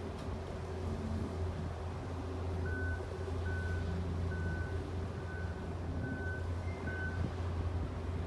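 Steady low drone of a tour boat's engine, with a run of six short, evenly spaced high electronic beeps, like a reversing or warning alarm, starting about a third of the way in.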